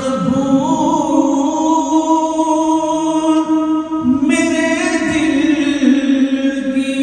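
A solo male voice sings an Urdu naat (devotional poem) into a microphone, drawing out long held notes with small ornamental wavers. A new phrase begins about four seconds in.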